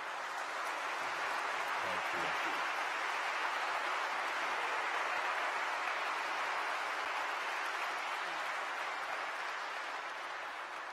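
Large audience applauding, swelling during the first second, holding steady, then easing off near the end.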